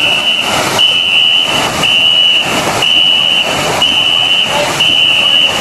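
A ghe ngo longboat crew of dozens paddling in unison, the paddles striking and churning the water about once a second. A shrill steady signal tone paces them and breaks off briefly at each stroke.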